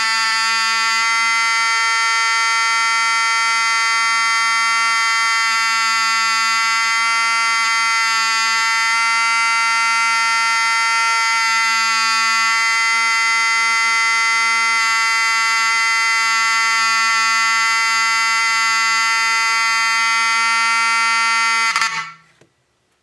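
Wheelock 34T-24 fire alarm horn sounding a continuous, clean, simple buzz at a steady loud level, then stopping near the end. There is no skipping in the buzz because no strobe is wired in series with this horn.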